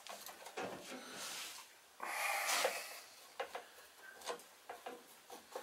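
Screwdriver loosening the throttle-cable clamp screw at a small engine's carburetor linkage: small metallic clicks and faint scraping, with a louder rubbing scrape about two seconds in that lasts about a second.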